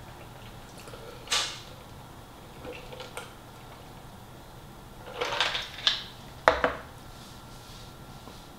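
Drinking from a large paper cup: a few short sips and swallows, then the cup is set down on the table with two quick knocks about six and a half seconds in.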